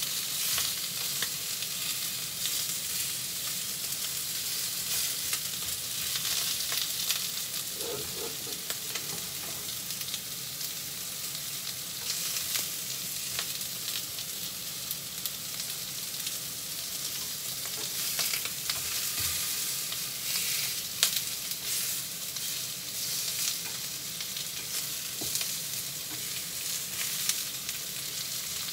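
Pieces of pork cartilage sizzling steadily as they are seared brown in a frying pan, with occasional light clicks of chopsticks against the pan as the pieces are turned.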